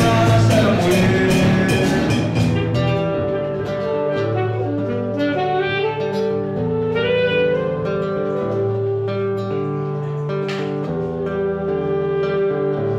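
Band music led by saxophone over acoustic guitar. It is dense and percussive for the first couple of seconds, then thins to held saxophone notes over plucked guitar.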